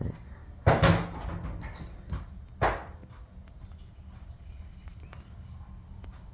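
Two loud knocks about two seconds apart, with a softer one between them, then faint scattered ticks over a low steady hum.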